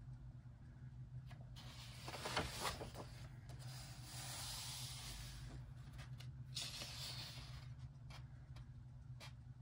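Paper rustling and swishing as a page of a large paperback coloring book is turned, about two seconds in, then a hand sliding over the paper to flatten it, with a few light paper ticks.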